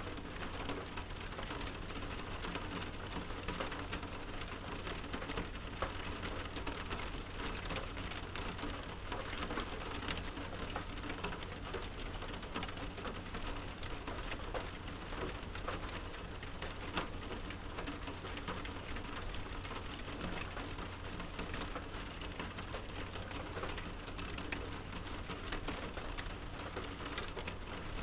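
Steady rain pattering on a window pane, a dense stream of small drop ticks over a constant low rumble.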